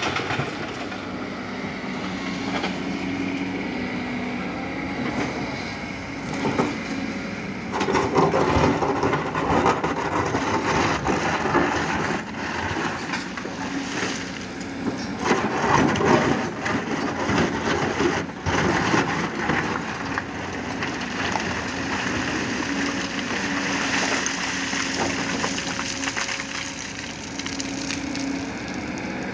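Kobelco 220 excavator's diesel engine running steadily under working load, with a constant hum. In the middle come two long, louder stretches of rock grinding and scraping as the bucket digs into broken stone.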